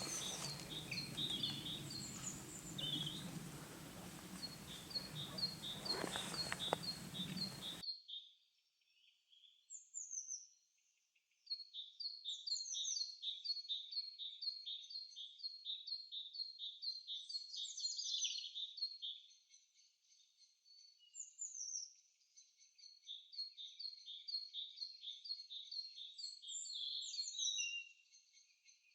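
Birds calling: a short high chirp repeats two or three times a second over a low background hum. About eight seconds in, this changes abruptly to a dense chorus of rapid, down-slurred high chirps in quick series, with brief quieter gaps.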